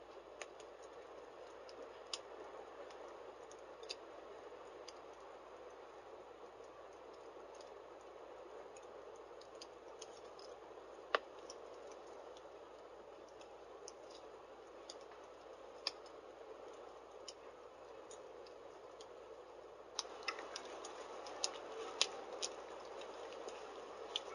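Wood logs burning in a fireplace: a faint steady rustle of flame with sparse sharp crackles and pops, coming thicker for a few seconds near the end.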